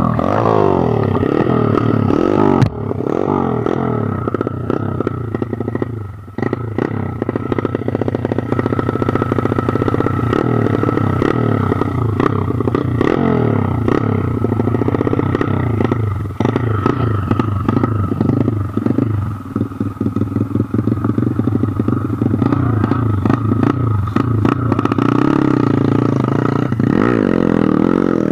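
Small single-cylinder dirt bike engines revving hard and unevenly, pitch sweeping up and down as the throttle is worked under load on a steep, loose dirt climb, with a couple of brief drops in revs.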